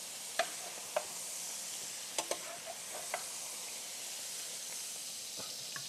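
Leeks braising in olive oil sizzling steadily in a skillet, with a few light clicks of metal tongs against the pan as they are lifted out, mostly in the first half.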